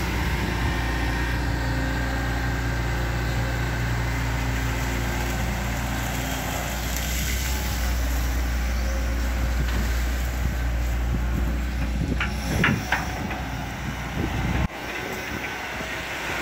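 Hitachi ZX110MF hydraulic excavator's diesel engine running steadily under load while it digs mud out of a ditch. A few sharp metallic knocks come about twelve seconds in, and the low drone drops suddenly soon after.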